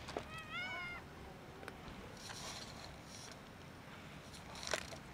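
A cat gives one short meow, rising then falling in pitch, about half a second in. There is a sharp click near the end.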